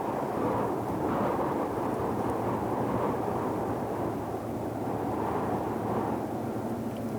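Deep ocean white noise: a steady, deep rushing hiss with most of its weight low down. It swells and eases gently every couple of seconds.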